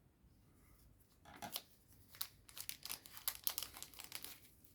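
Foil trading-card booster pack being torn open: a quick run of crinkles and rips, starting about a second in and stopping near the end.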